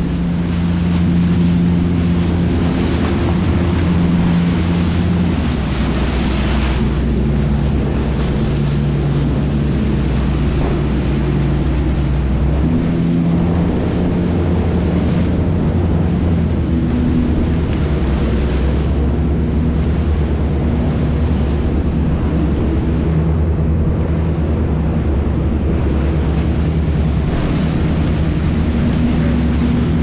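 Charter fishing boat's engine running under way, with water rushing past the hull in its wake and wind on the microphone. The low engine note shifts now and then as the throttle changes.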